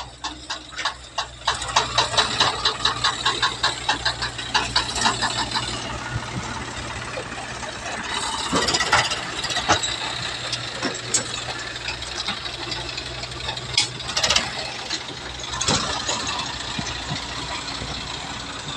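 Swaraj tractor's diesel engine running, with a fast regular clatter of about three knocks a second for a few seconds near the start and several sharp clanks later on.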